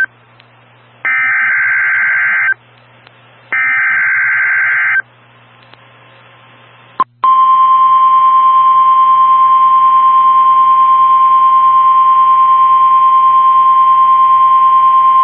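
Emergency Alert System header: two bursts of buzzy, warbling digital data tones, each about a second and a half long. After a pause of about two seconds and a click, NOAA Weather Radio's warning alarm tone sounds as one steady, loud, high beep held for about eight seconds. This signals that a warning, here a test tornado warning, follows.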